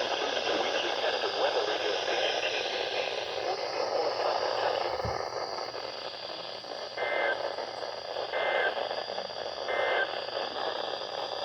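Radio receiver hiss and static. In the second half come three short two-tone beeps, about a second and a half apart.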